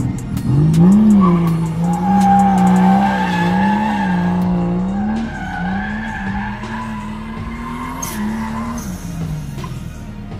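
Drift car sliding: the engine is held high in the revs, its pitch rising and falling as the throttle is worked, over a steady tyre squeal. The engine note drops and the sound eases near the end.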